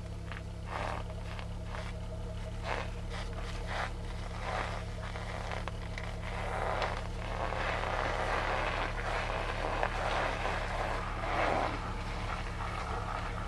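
Stock exhaust of a Volkswagen Mk5 Golf R32's 3.2-litre VR6 idling steadily, picked up at the rear bumper, with irregular scratchy noise on the microphone that is heaviest from about six to twelve seconds in.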